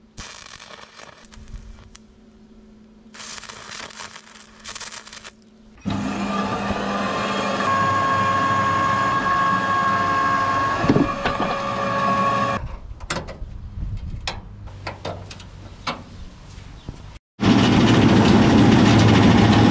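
A band saw running and cutting a plastic chopping board, with a steady whine, for about six seconds in the middle. Near the end a 15 hp V-twin ride-on mower engine starts running loudly, driving a roller chain.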